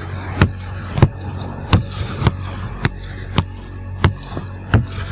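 A run of sharp thumps, about three every two seconds and slightly uneven, over a steady low hum.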